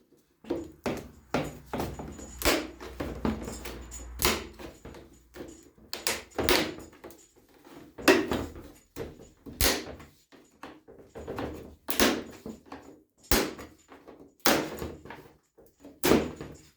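Plastic door trim piece being pried apart with a hand pry tool: an irregular series of sharp cracks, clicks and knocks, one or two a second, as the tool works the piece and its plastic tabs apart.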